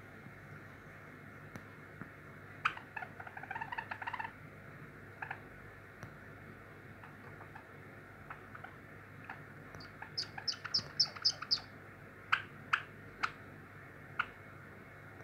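Java sparrow practicing its song, a male's song. Soft warbled chirps come a few seconds in, a quick run of about eight high piping notes follows near the middle, and several sharp clicks come after it.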